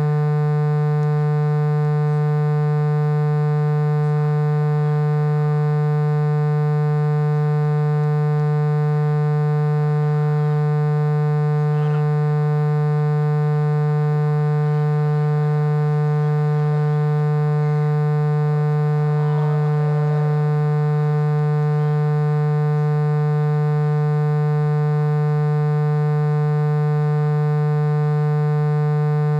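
A loud, steady buzzing drone at one low pitch with many overtones, unchanging throughout, with faint voices from the field beneath it.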